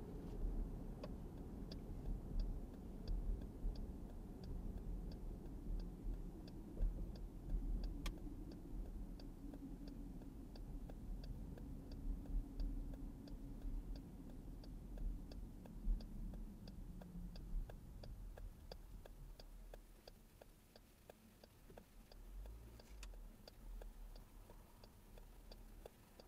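Car turn-signal indicator clicking steadily, about three clicks every two seconds, over the low road and engine rumble inside the cabin. The rumble fades after about 18 seconds as the car slows.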